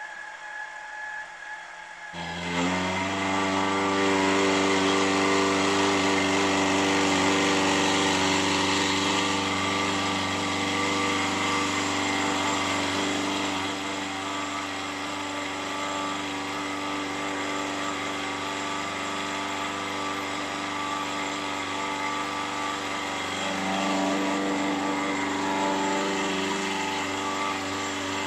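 Bench milling machine starts up about two seconds in and runs steadily while its end mill cuts into a brass bracket, facing flats for the slide bars. The machine and cutting noise swell a little near the end.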